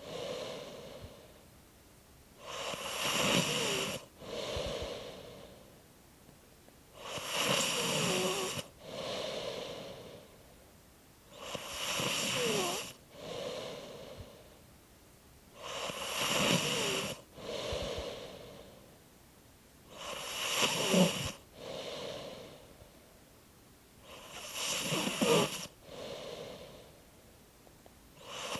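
Slow, regular snoring, about one breath every four and a half seconds. Each breath is a longer, louder snore with quiet squeaks that slide down in pitch, followed by a shorter, softer breath.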